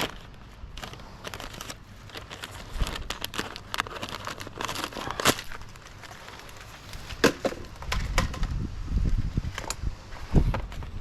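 Masking paper rustling and crinkling as a spent roll is changed, with irregular sharp clicks and knocks of handling. Low wind rumble on the microphone comes in about eight seconds in and again near the end.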